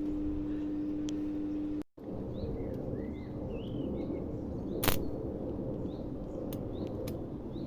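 A steady hum that cuts off suddenly about two seconds in. After it, a noisy outdoor background with small birds chirping now and then, and one sharp click about five seconds in.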